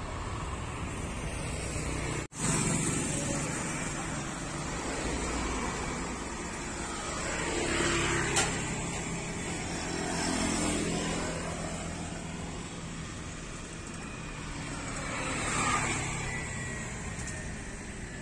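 Road vehicles passing one after another on a road close by, each swelling and fading, about three times, over a steady outdoor rumble. The sound drops out for an instant about two seconds in.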